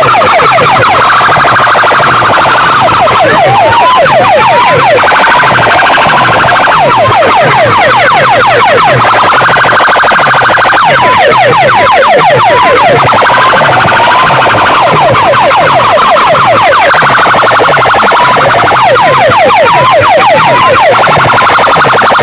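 A tall stack of horn loudspeakers on a DJ sound box plays an electronic car-alarm-style siren effect very loud, for a competition. The pattern repeats about every four seconds: a held high tone, then rapid sweeps and short rising chirps, over a low pulsing beat.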